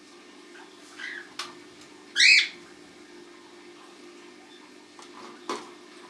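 Cockatiels calling: a soft chirp about a second in, then one short, loud squawk about two seconds in, and a brief click and call near the end. A faint steady hum runs underneath.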